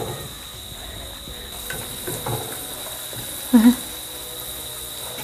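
Makhana (fox nuts) and cashews frying in hot oil in a nonstick pan, a steady sizzle. A thin, steady high-pitched tone runs underneath.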